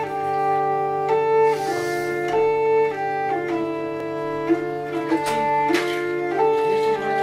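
Instrumental intro music: a steady low drone under a melody of held, organ-like notes stepping from pitch to pitch, with a swishing sweep about two seconds in and a couple more near the end.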